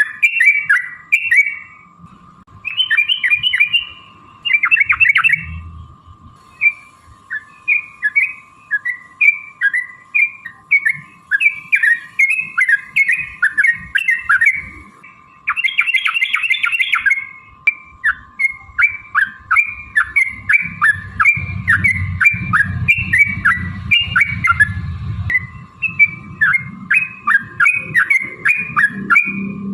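Yellow-vented bulbuls (trucukan) singing: a continuous run of short, bubbly chirping notes, broken by a couple of fast chattering bursts. A thin steady whine runs behind the song, and a low rumble comes in for a few seconds about two-thirds of the way through.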